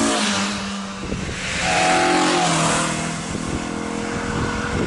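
A small hatchback's engine revving hard as the car passes close by, its note dropping in pitch as it goes by, then rising again as it accelerates away up the road about two seconds in.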